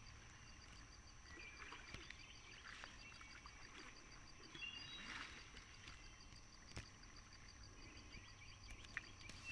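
Near silence: faint scattered bird chirps over a steady faint high hum, with a soft splash of kayak paddles about five seconds in.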